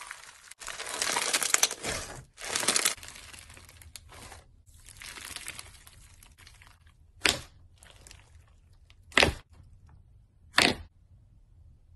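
Foam-bead slime (floam) being stretched and squeezed by hand, crackling and crunching as the beads rub and the slime tears, then three short, loud crackling bursts in the second half.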